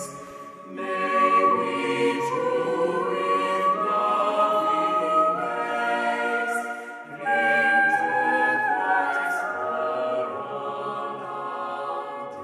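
Slow sacred choral music: voices singing long held notes that move in steps, with a new phrase starting about seven seconds in.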